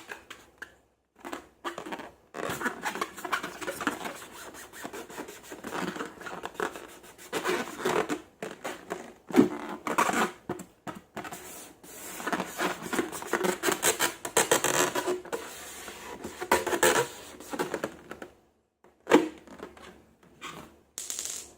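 Slime being squished and worked, giving a dense run of sticky clicks and crackles. It breaks off near the end, and a few short bursts follow.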